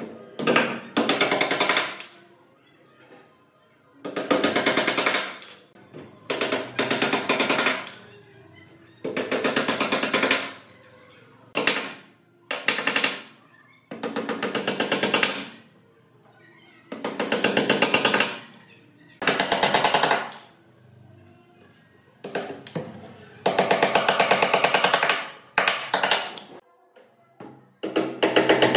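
A power tool run in more than a dozen short bursts of one to two seconds each, with quiet gaps between. Each burst has a rapid rattle.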